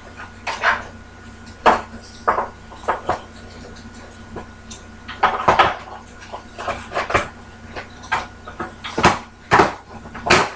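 Irregular knocks and clatter of hard plastic parts of an APC battery backup unit being handled and fitted together on a workbench: about a dozen sharp clicks and taps, busiest in the middle and near the end.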